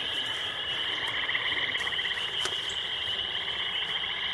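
Steady outdoor chorus of small calling animals: a fast pulsing trill with a higher steady band above it, running unbroken.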